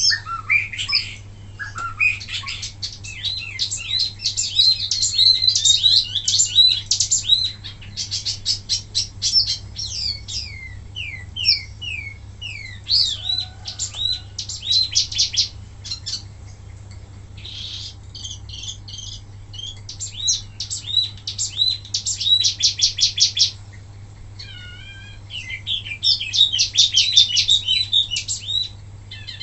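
Wambi mini songbird singing in bursts of fast, high trills and rapidly repeated sweeping notes, with short pauses between phrases. A faint steady low hum runs underneath.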